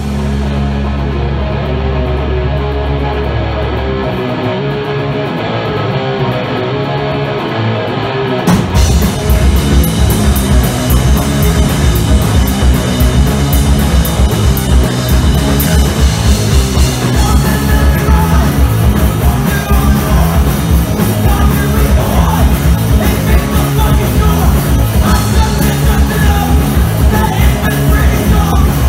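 A three-piece punk rock band playing live: distorted electric guitar and bass guitar open without drums, then the drum kit and cymbals crash in about eight and a half seconds in and the full band plays a fast, loud rock beat.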